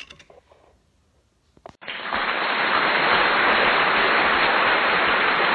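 Loud, steady hiss of even noise that starts suddenly about two seconds in, after a few faint sounds and a short click.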